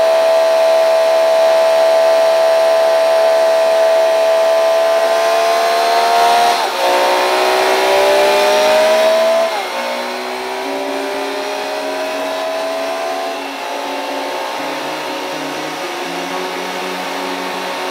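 Semi truck's diesel engine heard from the cab, its pitch climbing steadily and then dropping sharply at each gear change, twice about a third and halfway through, with a smaller step later as it shifts up through the gears.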